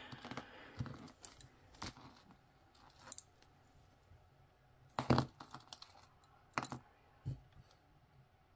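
Costume jewelry clinking as a beaded necklace is handled and its metal clasp worked: a few scattered, separate clicks, the loudest about five seconds in.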